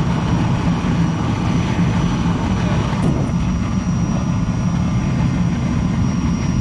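Large surface-mix rocket burner firing steadily into an in-ground forge: a continuous, deep rushing noise. From about three seconds in it turns slightly duller as the forge is covered with its lid.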